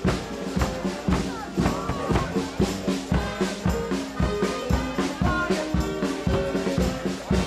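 Marching brass band playing a tune, with held brass notes over a steady drumbeat.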